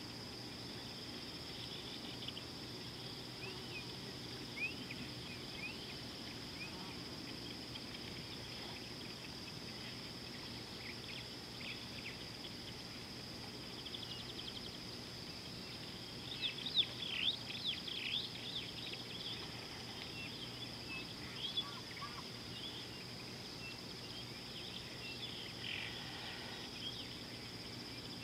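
Bush ambience: a steady high insect drone with scattered bird chirps and calls, the chirping busiest a little past the middle.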